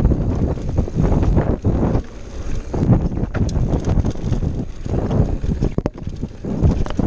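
Wind buffeting the camera microphone over the rumble of a Scott Ransom 930 full-suspension mountain bike rolling fast down a dirt trail, with frequent knocks and rattles from the tyres and bike over bumps. The noise eases briefly about two seconds in and again near the end.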